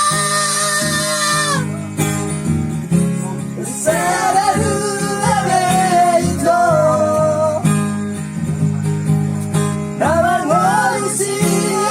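A song: a voice singing long, wavering held notes over strummed acoustic guitar.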